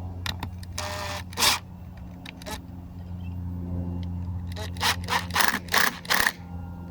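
Sharp clicks and knocks of a cordless drill and concrete screws being handled as a screw is set up to be driven, with a short rattle about a second in and a quick run of about six clicks near the end. A steady low hum runs underneath.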